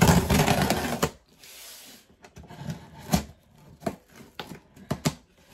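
Scissors slitting the packing tape on a cardboard box: a loud tearing rasp for about the first second, then scattered sharp clicks and taps of the scissors against the box.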